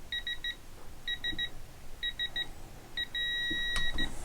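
Digital torque meter beeping as a cylinder-head bolt is tightened. Its short high beeps come in quick threes about once a second, then a held beep near the end signals that the set torque is reached.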